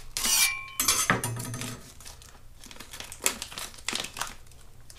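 A chef's knife slits a vacuum-seal plastic bag, with a sharp scrape and a brief ring of the blade in the first second, then a couple of knocks as the knife meets the wooden board. After that the stiff plastic crinkles and crackles irregularly as it is pulled back from a block of smoked cheese.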